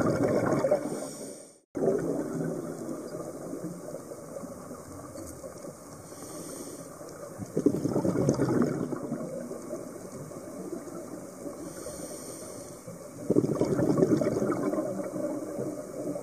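Scuba diver breathing through a regulator underwater: three rumbling bursts of exhaled bubbles about six seconds apart, with a fainter hiss between them. The sound drops out briefly about two seconds in.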